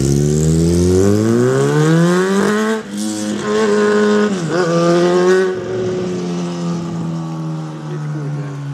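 A motor vehicle's engine accelerating, its pitch climbing steadily with breaks about three seconds and four and a half seconds in, like gear changes. It then settles into a steadier, slowly falling tone that fades.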